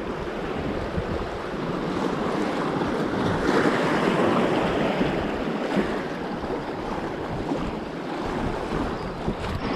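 Sea waves washing on the shore with wind buffeting the microphone; the surf swells louder about three and a half seconds in, then eases back.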